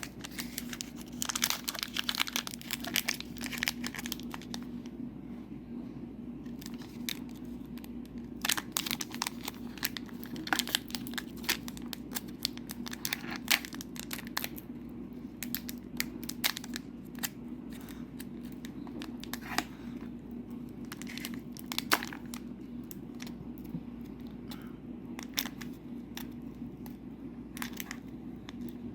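Foil trading-card booster pack being torn open and crinkled, with the cards inside handled. Sharp crackles come in clusters, busiest in the first few seconds, over a steady low hum.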